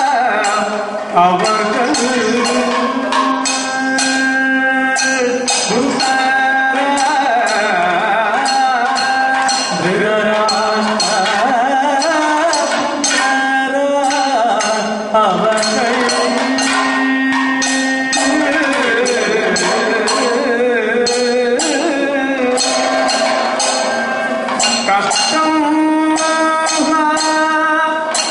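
Kathakali music: a vocalist's melodic sung line over continuous percussion, with frequent sharp metallic strikes throughout.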